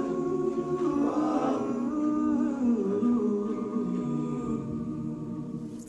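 All-male a cappella group singing a wordless harmonised intro of sustained, slowly falling chords, the last chord fading out near the end.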